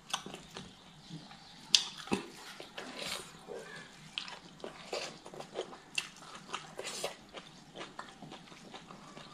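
Close-up chewing and lip-smacking of someone eating by hand: a run of short, irregular wet mouth clicks, with a couple of sharper clicks about two seconds in.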